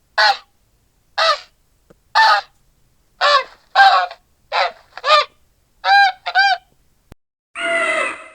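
Made-up penguin creature sound effect: nine short honking calls at uneven intervals, each bending up and down in pitch, then one longer, raspier call near the end.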